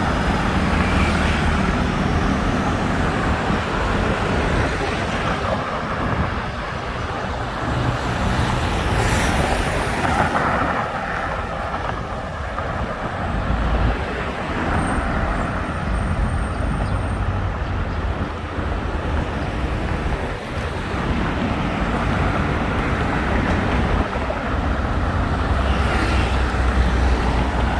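Steady road traffic on a busy multi-lane road: a continuous low rumble of motor vehicles, swelling now and then as vehicles pass close by.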